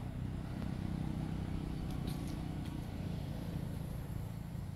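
A motor running steadily at a low pitch, with a few faint high ticks about two seconds in.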